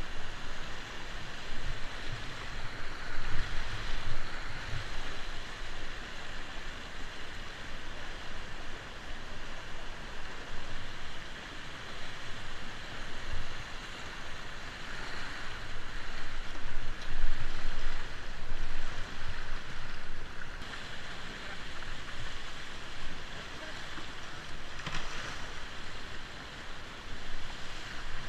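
River rapids rushing and churning, a steady hiss of white water heard close up from a kayak running them, with occasional low rumbles on the microphone and a brief knock near the end.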